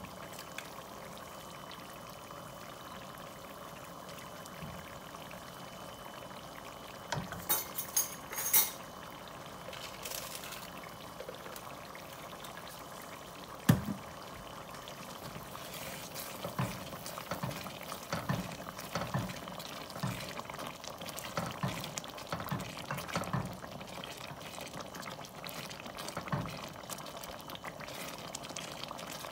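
Butter-based seafood boil sauce bubbling in a stainless steel pot, a steady simmering hiss. A few sharp clicks come about seven to nine seconds in and a single knock near the middle; from a little past halfway a wooden spoon stirs the sauce, with irregular soft knocks and scrapes against the pot.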